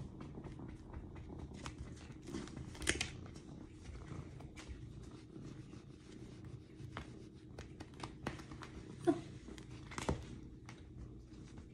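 Domestic cat purring with a steady low rumble while a hand strokes it, over scattered soft rustles and crackles from the hand on its fur and the cat rubbing against a woven rug. A brief higher note sounds about nine seconds in.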